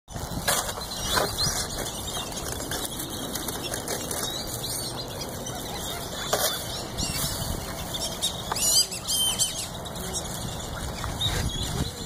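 Close rustling and flapping, with a few short, high, squeaky bird calls a little past the middle, from a flock of American white ibises crowding in on foot.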